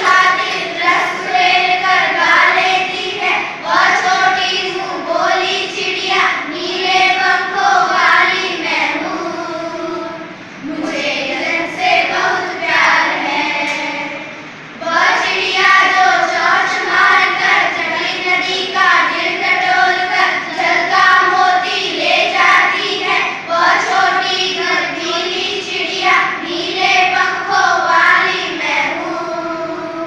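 A group of young girls singing a Hindi children's poem together in unison, with short breaks about ten and fifteen seconds in.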